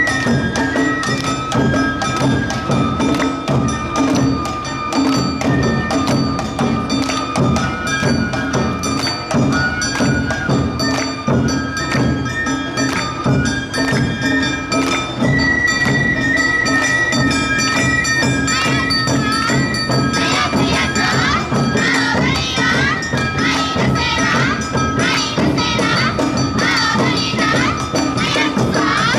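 Awa Odori hayashi band playing: bamboo flutes carry a held, sliding melody over a driving beat of drums and the steady ringing of kane hand gongs.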